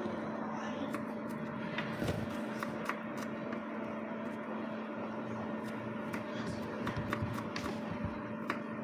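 Kitchen knife slicing shallots and garlic on a wooden cutting board: irregular light taps of the blade against the board, over a steady low hum.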